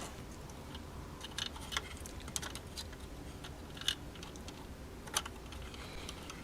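Scattered small clicks and taps of hands handling and fitting small parts of a cuckoo clock, with two sharper clicks about four and five seconds in.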